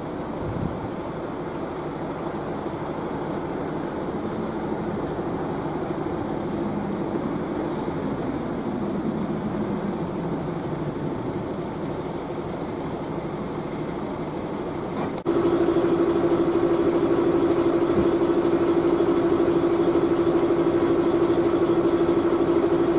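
Fire engines' diesel engines running: an engine note that shifts slowly in pitch as a truck draws near, then, after a cut about 15 seconds in, a louder, very steady engine hum.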